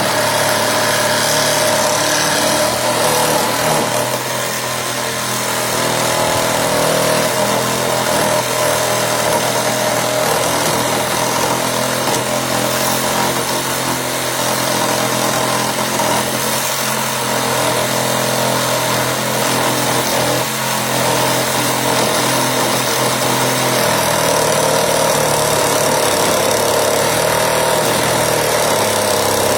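Cordless brushless reciprocating saw running steadily through a long cut in a half-inch titanium pipe. The hard metal burns up the blade as it cuts.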